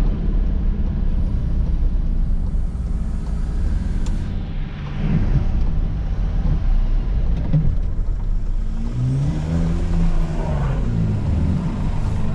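Volkswagen Crafter van's diesel engine and road noise, heard from inside the cab while driving at low speed. Towards the end the engine speeds up and eases off again, its pitch rising and then falling.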